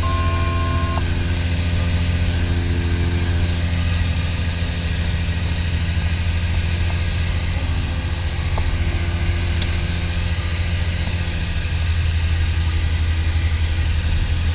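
The twin piston engines and propellers of a Piper PA-44 Seminole droning steadily in the cabin in flight. A brief electronic tone sounds for about a second at the start, and the drone shifts slightly in tone about twelve seconds in.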